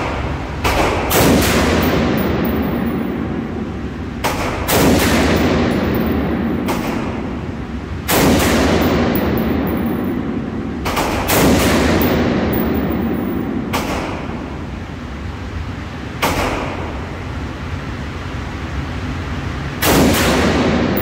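AR-15 rifle firing single shots at a slow, uneven pace, each sharp crack followed by a long booming echo off the walls of an indoor range.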